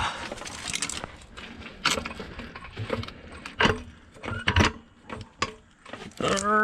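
Scattered metallic clinks, knocks and rattles of a jack and tools being handled and set in place under a car.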